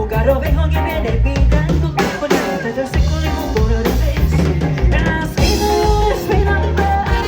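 Live Latin pop band playing, with drum kit keeping a steady beat (bass drum, snare and rimshots) under bass and melody instruments.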